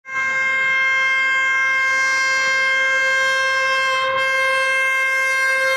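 Electric locomotive's horn sounding one long, steady blast at a single high pitch as the train approaches.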